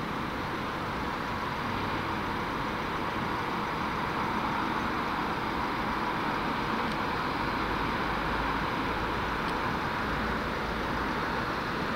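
Steady, unchanging vehicle noise: a constant rumble and hiss with no distinct events.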